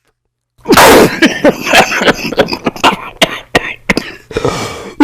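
A person's hard coughing fit: a dozen or so sharp, harsh coughs in quick succession starting about half a second in, ending in a raspy breath. It is the throat's reaction to a deep inhale of a mango-flavoured vape.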